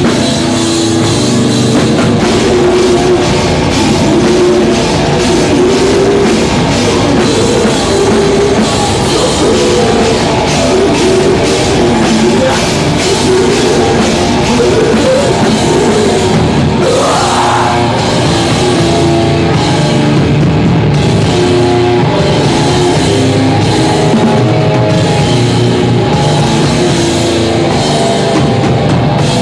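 Live heavy rock band playing loud: electric guitars over a drum kit, in a steady driving rhythm.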